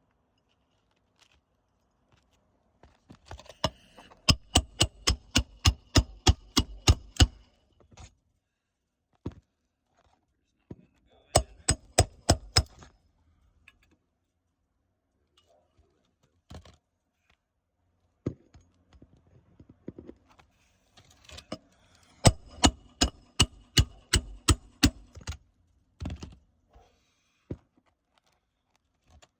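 Hammer blows on a roof snake driving roofing nails into a replacement shingle, in three quick runs of about four strikes a second with a metallic ring, plus a few single knocks between.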